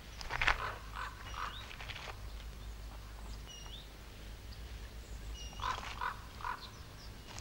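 Bird calls: short chirps with a quick upward-hooked note, mixed with a run of three short rough notes. The group comes just after the start and again about five and a half seconds in.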